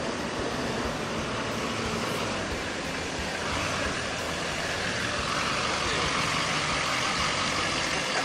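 Full-size pickup truck driving slowly past, its engine running steadily under road and tyre noise, growing a little louder in the second half as it comes close.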